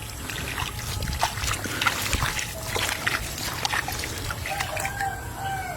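Water splashing and trickling in irregular small splashes, with a brief wavering pitched sound near the end.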